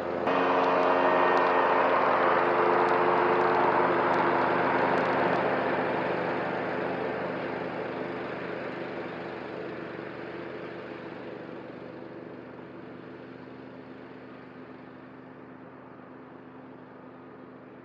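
Cub Cadet ZTS1 zero-turn riding mower running at mowing speed, engine and cutting deck going steadily, loud at first and then fading steadily from about five seconds in as it moves away. A few faint clicks in the first five seconds.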